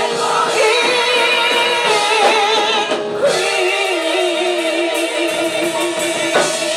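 A vocal group singing, then from about halfway in holding a long final note with vibrato.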